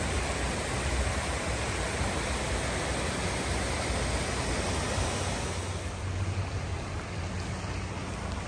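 Rushing mountain creek running over rocks: a steady, full wash of water noise with a deep low rumble under it.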